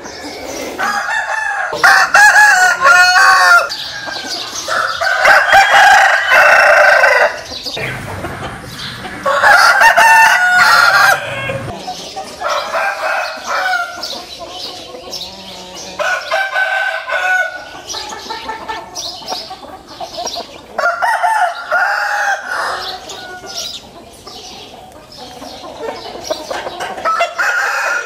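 Fighting-cock roosters crowing again and again, each crow lasting one to two seconds. Three loud crows come in the first half, then several fainter crows and calls follow.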